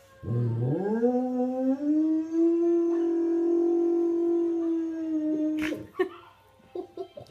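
German shepherd howling along to a video of howling puppies: one long howl that slides up from a low start and then holds a steady pitch for about five seconds before breaking off with a sharp click. A few short whimpers follow near the end.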